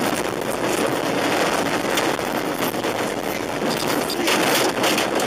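A car running off the road at highway speed and ploughing through grass and brush, heard from inside the cabin. There is a loud continuous rush of vegetation and dirt against the body and windscreen, with knocks about two seconds in and again near the end as it strikes bushes and small trees.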